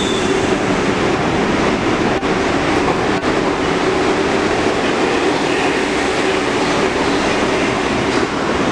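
New York City subway train of R62A cars pulling out of the station and running past close by: a steady, loud rumble of wheels on rail and running gear, with a steady hum under it. The last car goes by near the end.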